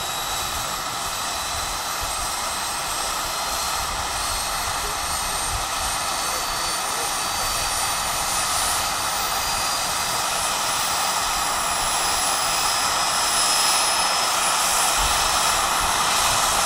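Turbine engine of a large-scale radio-controlled Bell 206 Jet Ranger model helicopter running on the ground with its main rotor turning. A high whine rises slowly in pitch over a steady rush of air and grows a little louder, as in a run-up toward take-off.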